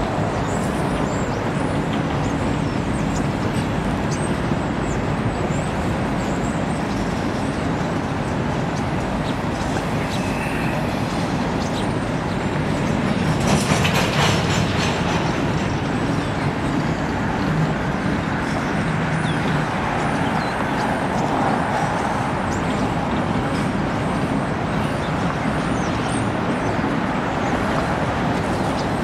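Steel wheels of a long CSX freight train of coal gondolas rolling steadily past on the rails, a continuous rumble and clatter. There is a brief louder burst of noise about halfway through.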